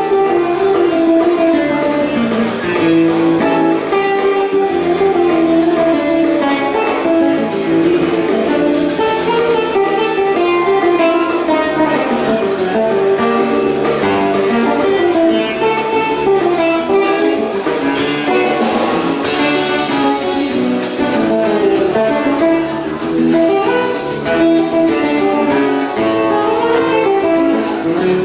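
Live instrumental Cape Verdean music: acoustic guitar picking a melody over electric bass and a drum kit.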